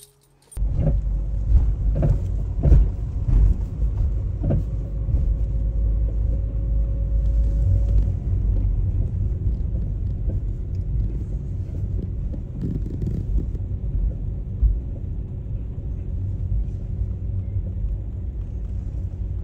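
Car in motion heard from inside the cabin: a steady low rumble of engine and road noise, with a few short knocks in the first few seconds.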